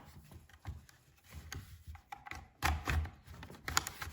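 Plastic pry tool scraping along the seam of a Dell Inspiron 15 5000 laptop's bottom cover, with irregular clicks and knocks as the cover's snap clips are worked loose. The loudest knocks come a little before three seconds in.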